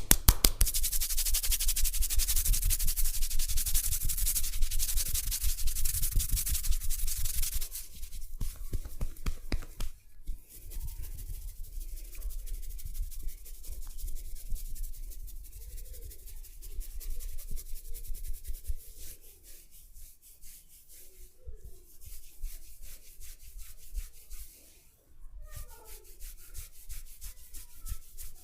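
Hands rubbing over hair and skin in a head and neck massage. Fast, loud scrubbing strokes come first, then after about seven seconds the rubbing turns softer and slower.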